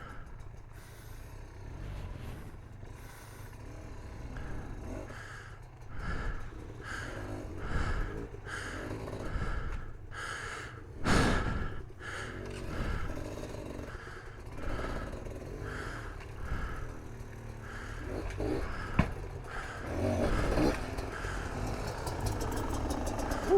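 A dirt-bike rider breathing hard and fast inside a helmet, about one and a half breaths a second, over the low steady rumble of the bike. A louder, sharper breath or knock stands out about eleven seconds in.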